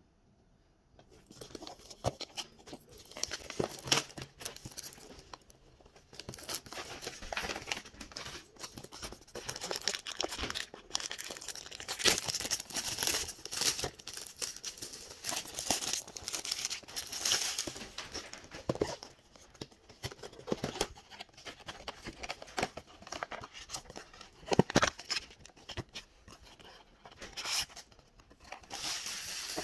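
Gift wrapping paper is torn and crumpled off a cardboard box, then crinkling plastic shrink-wrap is pulled away and the box's cardboard flaps are opened. It comes in irregular bursts of tearing and rustling with a few sharp knocks.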